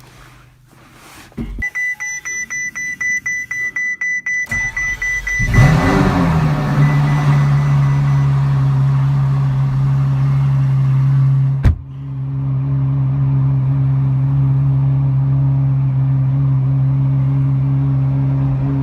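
A Ferrari LaFerrari's hybrid V12 being started: a rapid series of high beeps for about three seconds, then the engine catches with a brief rev flare and settles into a steady idle. A sharp click about twelve seconds in briefly drops the sound before the idle carries on.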